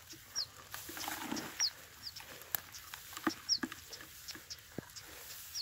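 A small bird's short, high chirps that slide downward in pitch, about five spread over a few seconds, calling repeatedly close by. Scattered clicks and rustles of grass being parted by hand.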